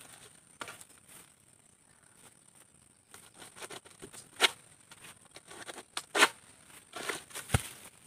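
Long-pole oil palm harvesting sickle hacking and dragging at palm frond bases: a run of sharp cracks and tearing sounds, the loudest about four and six seconds in. A low thud comes near the end.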